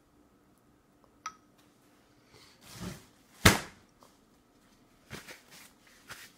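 Light clink against a stainless steel bowl with a short ring about a second in, then a few knocks and bumps on a high-chair tray, the loudest about halfway through.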